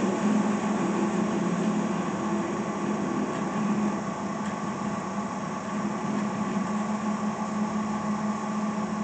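Victor DCM-4 vertical band saw running without a cut, its 2 hp three-phase motor and blade giving a steady hum. The hum wavers slightly while the blade speed is changed at the handwheel.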